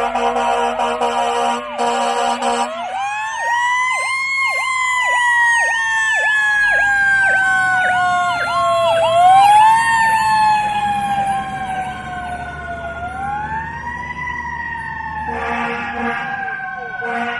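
Fire engine siren wailing, climbing quickly and then falling slowly three times, with a faster warbling siren tone laid over it.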